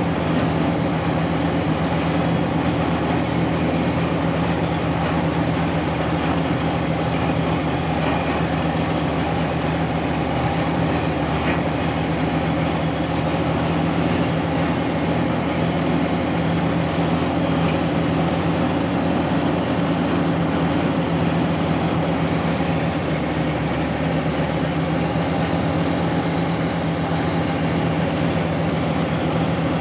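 Heavy diesel engine running steadily at a constant speed, with no revving.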